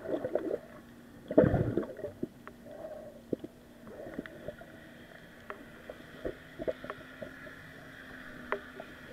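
Muffled underwater sound picked up by a camera submerged among snorkelers: scattered small clicks and knocks, one louder thump about a second and a half in, over a faint steady hum.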